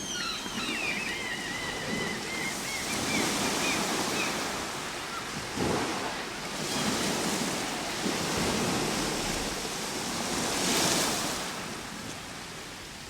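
Ocean surf washing ashore: a steady hiss that swells with each wave, loudest about eleven seconds in and easing off near the end. A run of high, quick chirps sounds over it in the first four seconds.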